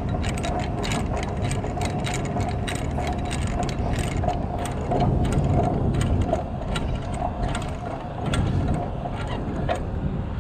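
Hand-cranked gearing of a battleship's anti-aircraft gun mount being turned. It gives a rapid, irregular clicking, several clicks a second, over a steady whine.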